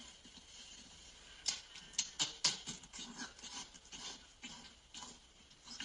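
Wet sucking and smacking mouth sounds from an adult video's oral-sex scene, staged rather than real. They come as an irregular run of short wet clicks, busiest about two seconds in.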